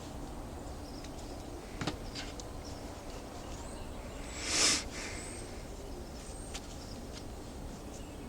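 HotSnapZ reusable heat packs being activated: a couple of small sharp clicks of the metal trigger disc, then a brief rustle of the packs being handled and flexed about four and a half seconds in, over steady outdoor background noise.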